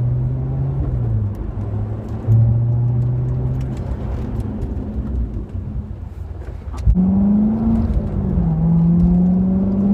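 Chevrolet C7 Corvette Stingray's 6.2-litre V8 running while the car is driven. The engine note eases off and fades for a few seconds as the car slows for a brake-pad bed-in stop. About seven seconds in it picks up sharply and rises as the car accelerates again.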